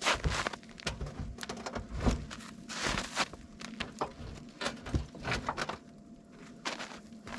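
Irregular knocks, clicks and brief rustles, spaced unevenly, of something being handled or moved.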